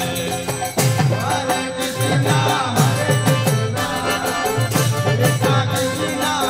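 Devotional kirtan: group chanting over a hand drum and hand cymbals, with the drum's deep strokes falling in pitch about twice a second.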